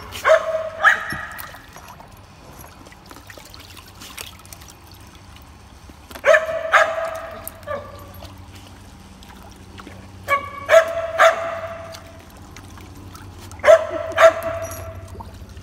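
Dog barking in short, high-pitched bursts of two or three barks, four times, with water dribbling and sloshing in a plastic wading pool as dogs wade in it.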